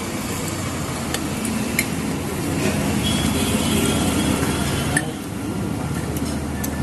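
Cutlery clinking against a plate a few times during eating, the loudest clink about five seconds in, over a steady background hum.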